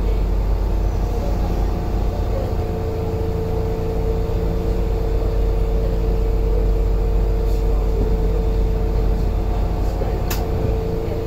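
Interior sound of a Toden 7700 series tram: a steady low rumble with an even hum over it, and a single sharp click about ten seconds in.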